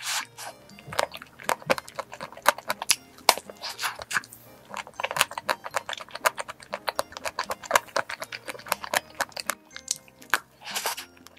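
Close-up bites and chewing of a mousse cake with a hard white chocolate coating: many quick crisp crackles as the shell breaks, with soft mouth sounds between. Faint background music plays underneath.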